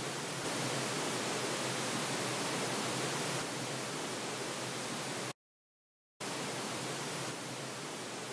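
THX Optimizer speaker-test signal: steady pink noise hiss, switched from channel to channel (left, right, then right surround), its level stepping at each change. A break of under a second, about two-thirds of the way through, comes as it moves between channels.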